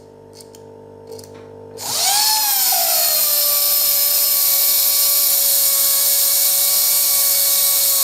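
Small DC motor (a Johnson motor) from a Renault Scenic's electronic parking brake unit, run on the bench from a transformer. A low transformer buzz and a few clicks come first. About two seconds in the motor spins up with a whine that rises briefly, then settles into a loud steady whine as it runs freely. The owner had suspected the motor was shot.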